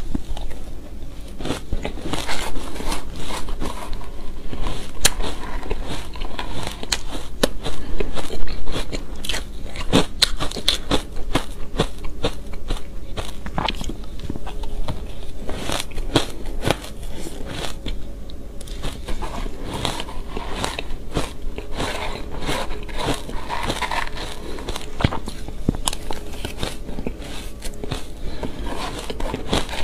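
Biting and chewing of shaved ice topped with matcha, a dense, irregular run of crunches and crackles.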